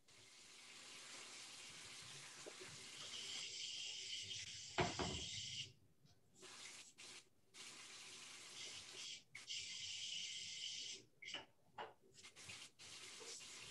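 Watery hiss of a pot of soup boiling on a gas stove, cutting in and out several times, with a single knock about five seconds in.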